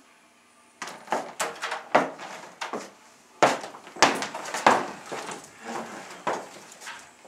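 Footsteps and door bumps as several people walk out through a doorway: a string of sharp, irregular knocks, several a second, starting about a second in.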